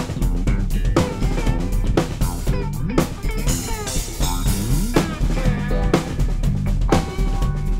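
A band jamming: drum kit with kick, snare and rimshots over a bass line and guitars, with a strong drum hit about once a second.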